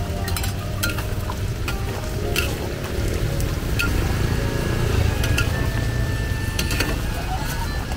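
Crickets deep-frying in a wok of bubbling oil, sizzling steadily, while a long-handled metal ladle stirs through them, with scattered clinks.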